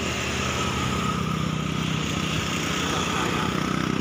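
Motorcycle engine running at a steady pace while riding, with road and wind noise.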